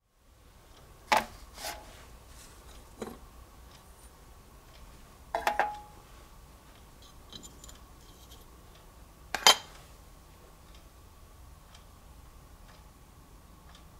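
Several sharp clicks and knocks at irregular intervals, including a quick cluster of three about five and a half seconds in and the loudest knock near ten seconds, over a faint steady hum.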